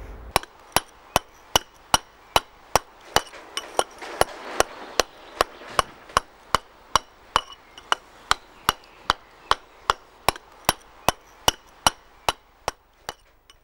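Round wooden mallet striking a chisel in a steady rhythm, about two and a half sharp knocks a second, stopping shortly before the end.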